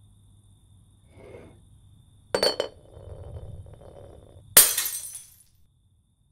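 A drinking glass knocked over: a sharp clink as it tips onto the countertop, a low rumble as it rolls, then a loud crash of shattering glass about four and a half seconds in.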